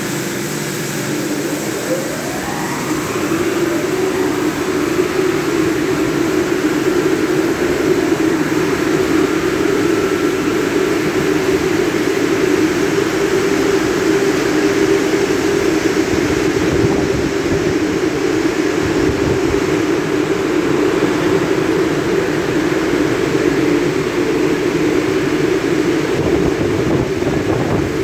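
Drying blowers of a Christ gantry car wash starting up with a rising whine about two seconds in. They then run with a loud, steady rush of air over the car.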